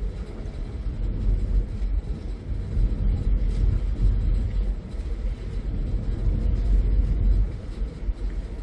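Harbour ferry under way, heard from its open deck: a continuous low rumble of the engines, rising and falling unevenly with wind on the microphone.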